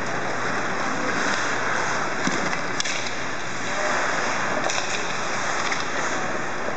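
Ice hockey skates carving and scraping across the rink ice as several players skate a drill, a steady hiss with a few sharp clicks of sticks and puck.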